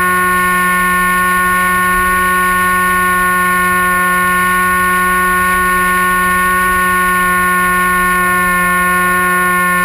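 The Dynam Hawk Sky's brushless electric motor and propeller, heard from the plane's onboard camera, whining at a steady pitch at constant throttle. Wind rumbles on the microphone underneath.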